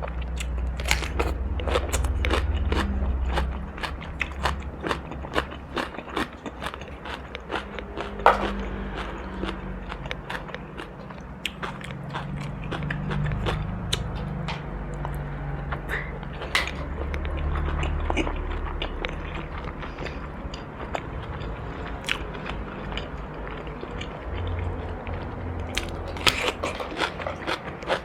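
Close-miked biting and chewing of crunchy food, with many sharp crunches and crackles throughout.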